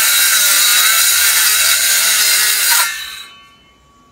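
A power saw running steadily, then cut off about three seconds in and winding down quickly.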